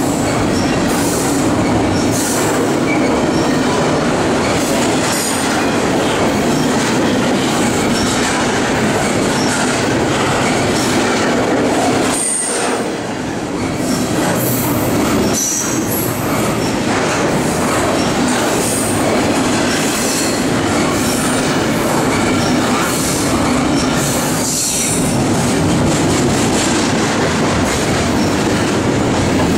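Double-stack intermodal well cars of a long freight train rolling past at close range: a loud, steady rumble and clatter of steel wheels on the rails, with short high-pitched wheel squeals every few seconds.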